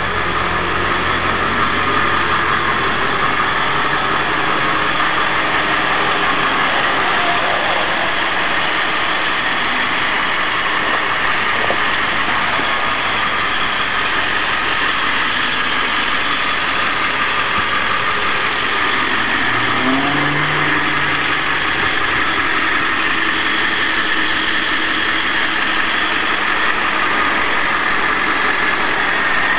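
Ford E-350 ambulance's 7.3 L diesel engine idling steadily.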